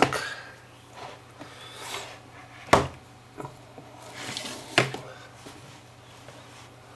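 A cardboard box and its lid handled on a wooden desk: sliding, rustling cardboard with two sharp knocks. The louder knock comes just under three seconds in and the other near five seconds.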